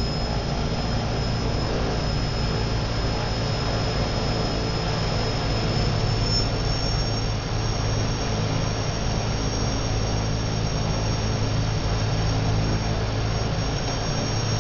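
Two Pratt & Whitney PT6A-11 turboprop engines running together, heard from the cockpit: a steady high whine over a low drone. The whine steps up slightly in pitch about six seconds in.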